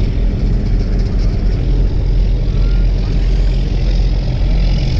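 A fishing boat's engine running steadily, a continuous low hum with wind and sea noise over it.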